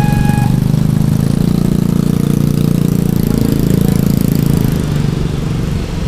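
A level crossing's electronic warning tone stops about half a second in. Then a crowd of motor scooters and motorcycles accelerates off together, many small engines running at once as the crossing barrier lifts and traffic crosses.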